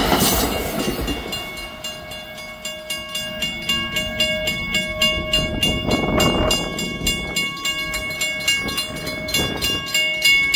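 Three mechanical railway crossing bells clang in rapid, regular strikes. The rumble of the passing commuter train fades away over the first couple of seconds. There is a brief rush of noise about six seconds in.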